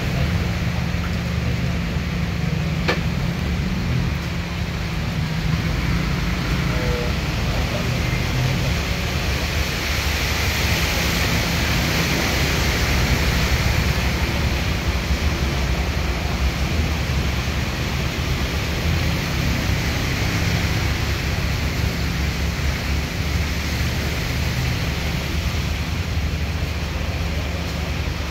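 Steady rushing noise of floodwater running along a city street, mixed with motorbike and tuk-tuk traffic wading through it; the noise swells as a vehicle passes about twelve seconds in.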